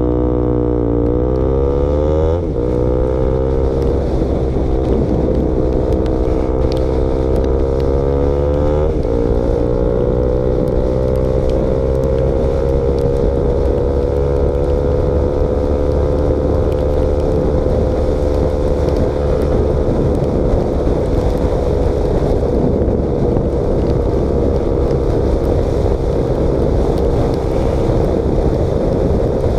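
KTM Duke motorcycle engine running with its exhaust baffle removed. The note climbs twice in pitch, breaking about two and a half and nine seconds in, then holds a steady pitch.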